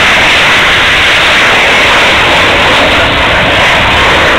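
Loud, steady jet engine noise from a fighter jet flying low past.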